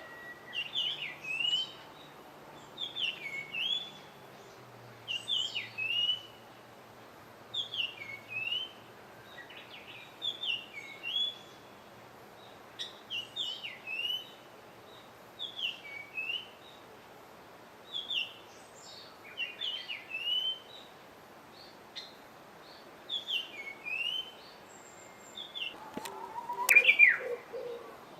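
A wild songbird calling, short chirping phrases of quick up-and-down notes repeated about every one and a half to two seconds. Near the end comes a louder, different burst of calls with a sharp click.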